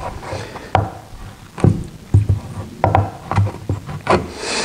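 Paint scraper knocking and scraping along a glued-up wooden cutting-board panel, lifting glue squeeze-out that is still soft: a series of short, irregular scrapes and knocks.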